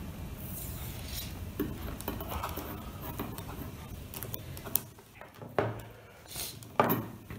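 Insulating tape being pulled off the roll and wrapped around a loose wire end, rustling and scraping, with a few light clicks of handling.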